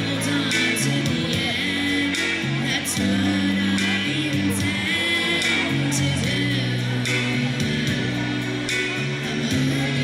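A girl singing into a handheld microphone over instrumental backing music, her voice amplified.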